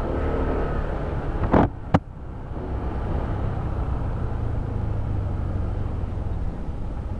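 Honda ADV 160 scooter's single-cylinder engine running under way, with two sharp knocks close together about one and a half to two seconds in, after which the engine sound settles lower.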